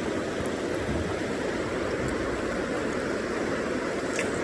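River water rushing steadily, an even continuous noise.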